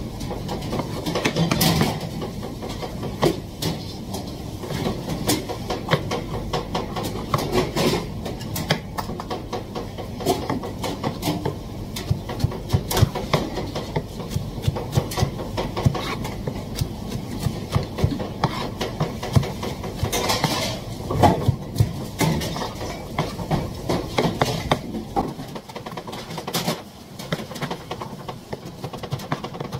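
Kitchen knife chopping bell peppers into strips on a plastic cutting board: a fast run of short knocks of the blade against the board, with slight pauses between bursts.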